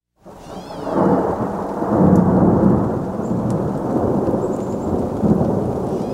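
Rumbling thunder over a steady wash of rain, fading in over the first second and swelling in several rolls.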